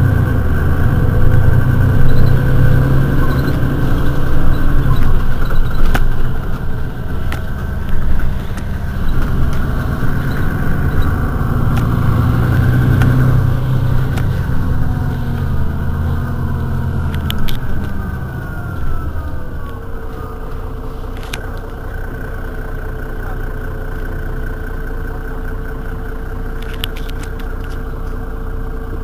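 Mercedes-Benz Citaro city bus engine running while the bus stands at a stop, loud and uneven through the first half, then winding down after about 18 seconds to a quieter, steady idle with a constant whine.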